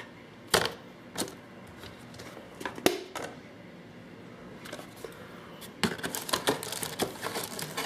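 Hard plastic clicks and knocks from handling a paintball hopper and its speed feed. A few separate sharp clicks come first, then a quick flurry of rattling clicks near the end.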